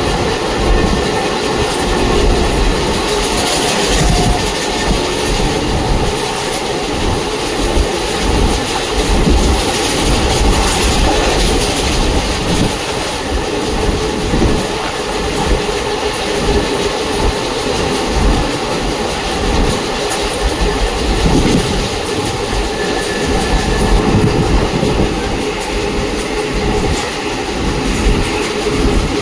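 Indian Railways ICF passenger coach running at speed: a steady, loud rumble, with the wheels clattering irregularly over the rail joints.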